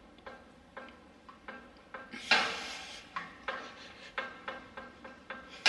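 Steel suspension parts clacking as a rear upper control arm is cycled up and down and knocks against the chassis bracket at the top of its travel, a sign of too little clearance there. The clacks come two or three a second, each with a short metallic ring, and the loudest falls about two and a half seconds in.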